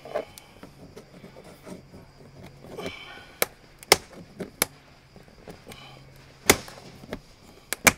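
Plastic clicks and knocks as a stuck door courtesy light is pried and worked loose from its housing under a Tesla Model Y door. The sharp clicks come irregularly, with the loudest about six and a half seconds in and two close together near the end.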